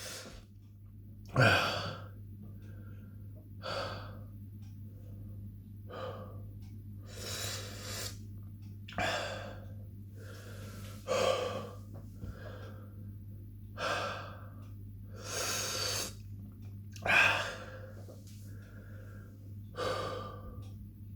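A man breathing hard through the mouth, one breath every second or two, with a few sharper, louder gasps among them. This is the heavy breathing of someone coping with the burn of an extreme-heat capsaicin sauce.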